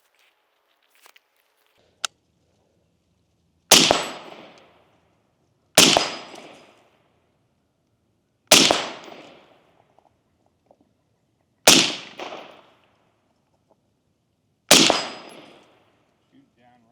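Five single gunshots fired at a slow, deliberate pace, two to three seconds apart, each followed by an echo that dies away over about a second. A sharp click comes just before the first shot.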